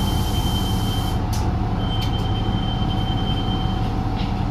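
Inside a 2016 New Flyer XDE40 diesel-electric hybrid bus under way: a steady low rumble with a constant mid-pitched hum, and a thin high-pitched whine that drops out about a second in and returns for about two seconds. A hiss cuts off about a second in, and a few light clicks follow.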